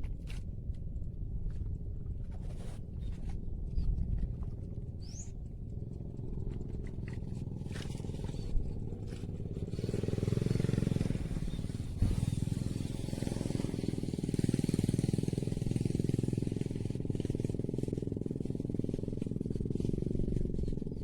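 A small engine running steadily with a low rumble, growing louder about halfway through and again a few seconds later, like a motorbike or small motor passing.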